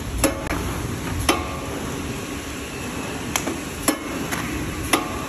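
Automatic box packing machine line running with a steady mechanical hum, broken by five sharp metallic clacks at uneven intervals, several of them ringing briefly.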